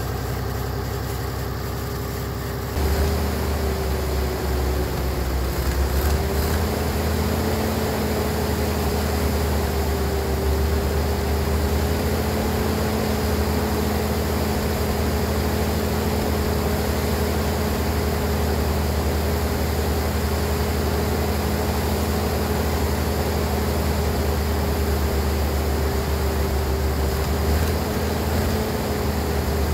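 A pickup truck's engine idling, then about three seconds in the muskeg tracked tractor's engine catches and keeps running, louder, with a low rumble and a steady whine above it.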